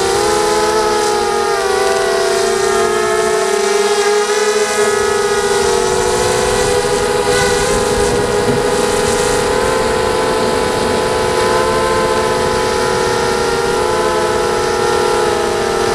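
ZMR250 mini quadcopter's Sunnysky 2204 brushless motors and propellers whining in flight, heard close from the onboard camera. The whine is steady, and its pitch wavers slightly as the throttle shifts.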